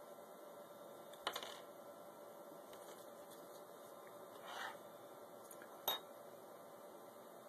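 Two sharp, light clicks of small hard objects touching, about a second in and again near the end, with a short rustling scrape between them.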